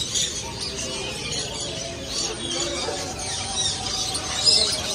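Many caged small birds chirping and squawking at once, a constant din of short high calls, with people talking faintly underneath.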